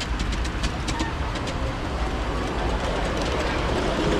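Miniature live-steam locomotive, a brass model of a DB class 64 tank engine, running past on raised track. A quick run of sharp clicks comes in the first second and a half, over a steady low rumble that grows a little louder near the end.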